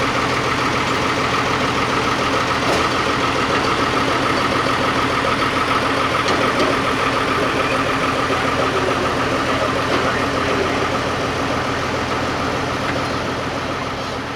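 Fire engine's diesel engine running steadily at idle.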